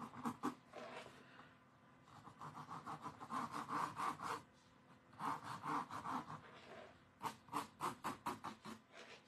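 Ink pen scratching across a chalk-painted canvas board in clusters of short, quick sketching strokes, with brief pauses between the clusters.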